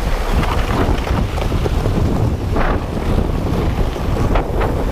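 Wind buffeting the microphone as it is pulled fast on a sled towed behind a car: a steady, loud rushing rumble with brief louder gusts a little past halfway and near the end.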